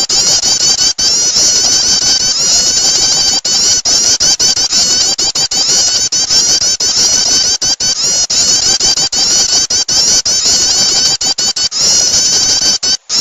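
Prinia (prenjak) calls, a lure recording for small birds: a loud, unbroken stream of rapid, high chirping notes repeated many times a second.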